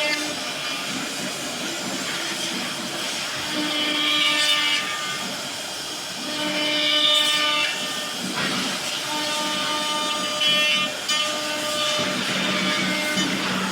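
CNC machine axes moving: the drive motors whine in steady tones that jump to a new pitch every second or two, over a constant hiss.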